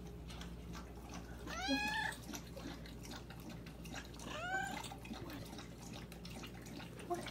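Domestic cat meowing twice, about three seconds apart, each meow rising and then falling in pitch.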